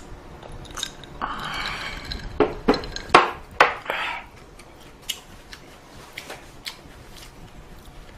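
Eating utensils clinking and scraping against dishware, with a cluster of sharp knocks about two and a half to four seconds in.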